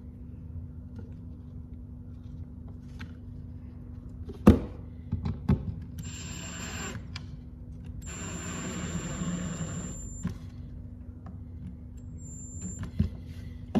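Cordless drill-driver running in two short bursts, about one second and then about two seconds long, driving screws into L brackets on a wooden screwdriver rack. A sharp knock comes shortly before, with a few lighter knocks of handling, over a steady low hum.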